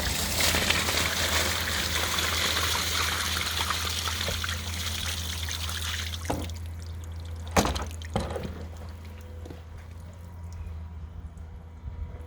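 Water rushing and trickling, fading away over the first six seconds, over a steady low hum. Two sharp knocks come a little past halfway.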